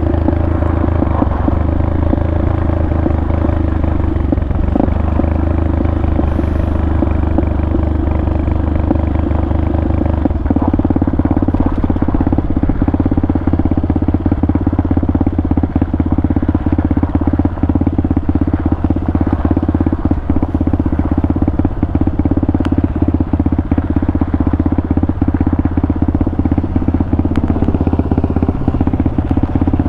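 Pitster Pro 190 pit bike's single-cylinder four-stroke engine running steadily while riding, its note shifting about ten seconds in.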